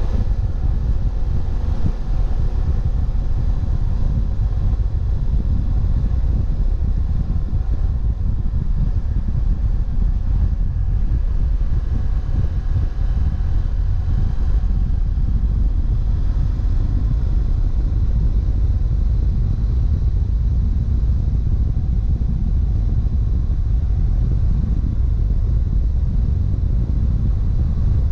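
Motorcycle riding at road speed: a heavy, steady wind rumble on the camera microphone, with the BMW F700GS's parallel-twin engine faintly audible underneath.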